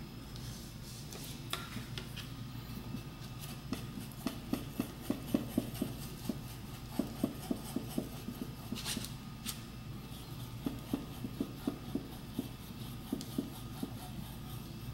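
Two-part epoxy being stirred with a wooden stick on cardboard: a run of soft, quick scraping taps, with a couple of sharper clicks near the start and about midway.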